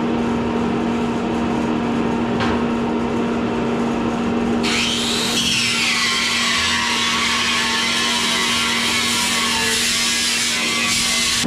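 A power tool running with a steady hum. About halfway through a harsher, higher grinding noise sets in, drops in pitch, then holds steady.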